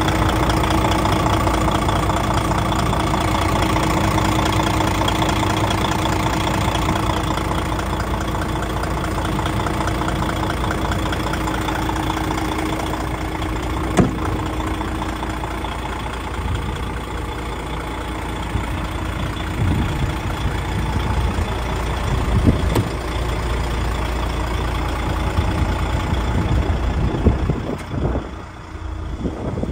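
DAF XF truck's diesel engine idling steadily with a light clatter, heard through the open front panel. A single sharp click comes about fourteen seconds in, and near the end the engine sound drops and comes muffled.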